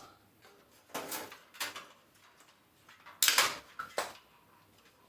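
Thin stamped-metal PC I/O shield being pushed into the rear opening of a computer case: a handful of short clicks and knocks, the loudest about three seconds in, as it resists fitting.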